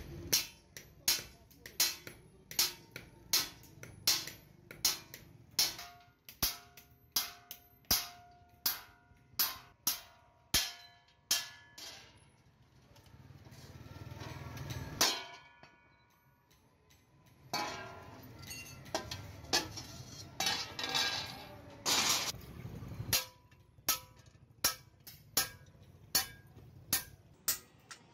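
Hand hammer striking a steel sheet on a small anvil block: a steady run of ringing metallic blows, roughly one and a half a second, broken by an irregular stretch midway.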